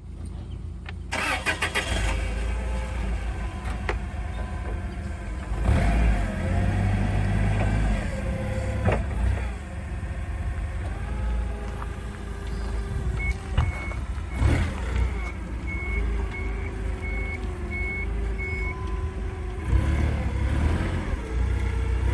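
Toyota 8FGCU30 forklift's LP-fuelled engine running as it drives, with the revs rising and falling several times. Its reversing alarm beeps steadily for several seconds around the middle.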